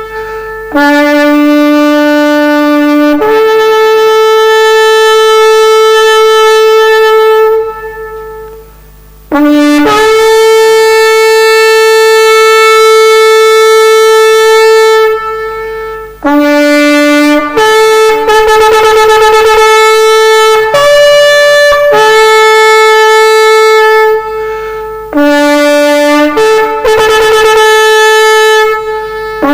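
Shofar blowing about five long blasts, each starting on a lower note and stepping up to a higher held note, some with a trembling, wavering passage in the middle, with brief breaks for breath between blasts.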